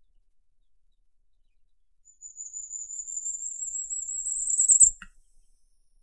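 Firecrest singing one song, a rapid string of very high, thin notes. It starts about two seconds in, grows louder toward the end and stops abruptly after about three seconds.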